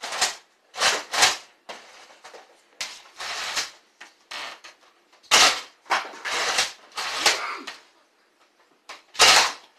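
Toy Nerf blaster being primed and fired at targets: a string of sharp plastic clacks and puffs at uneven spacing, loudest about five and nine seconds in.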